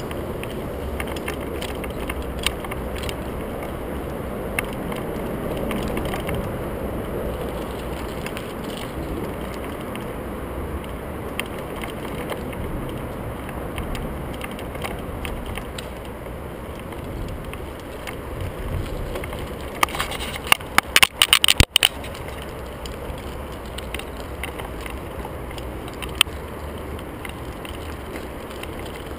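Merida Matts TFS 800-D mountain bike rolling over a rough dirt and gravel trail: a steady rumble of tyres and rattling bike parts. About two-thirds of the way through comes a quick burst of sharp knocks and rattles, the loudest sounds here.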